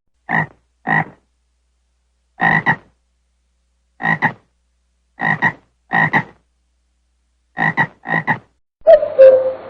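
A frog croaking in short calls, each made of two or three quick pulses, about eight calls with pauses between them. Near the end a different animal call over a background hiss starts.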